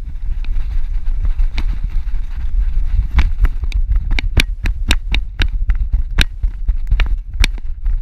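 Handling noise from a GoPro strapped to a running Shih Tzu's back: a heavy low rumble of the camera shaking and wind, with irregular sharp clicks and knocks of the jostling camera mount, several a second, from about three seconds in as the dog runs.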